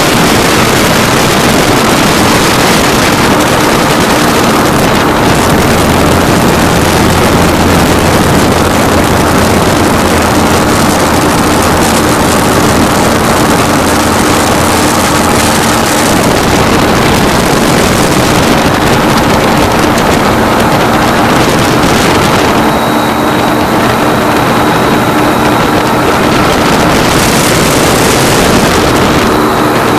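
Powered parachute's engine and propeller running steadily in flight, loud and close, with wind rushing over the microphone.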